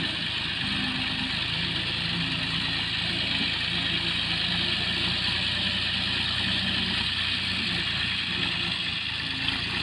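Tractor engine running steadily as the tractor drives across a field pulling a rear-mounted land leveller.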